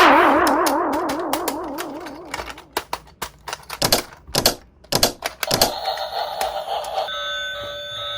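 Sound effects: a warbling, wobbling tone that starts loud and fades over about two seconds, then a run of sharp clicks, then steady electronic tones from about six seconds in.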